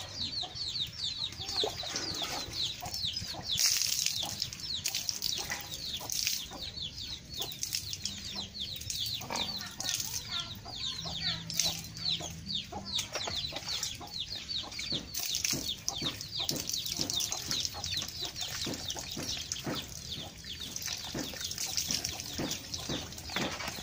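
Birds chirping without pause: a dense stream of short, high, falling notes. Light splashes of water are poured from a scoop over a horse's wet coat.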